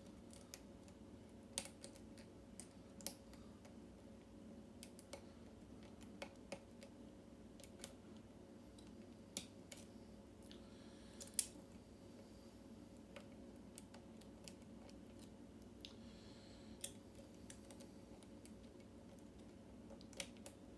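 Faint, irregular small clicks of a steel hook pick working the pins inside a Yale mortise cylinder's keyway, with one sharper click about halfway through, over a faint steady hum.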